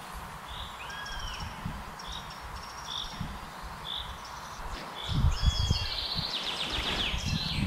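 Small birds calling: short high chirps about once a second, with a fast high trill near the end. From about five seconds in there is also a low, uneven rumbling noise.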